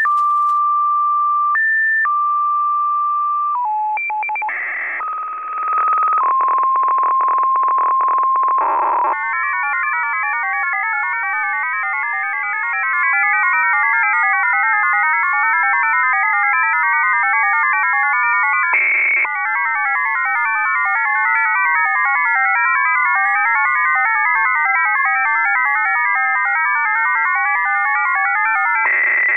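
F07, a Russian digital data signal received on a shortwave radio in upper sideband. It opens with a few seconds of steady tones switching pitch and short hiss-like bursts, then from about nine seconds many tones hop rapidly at once in a dense warbling pattern, broken by a brief hiss-like burst about every ten seconds.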